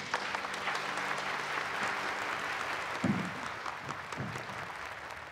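Audience applauding: many hands clapping in a dense, even patter that gradually dies down over the last couple of seconds.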